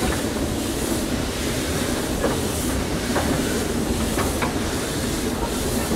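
Narrow-gauge steam train carriage running along the track, heard at its open doorway: a steady rumble and rush of wheels on rails, with a few sharp clicks over the rail joints.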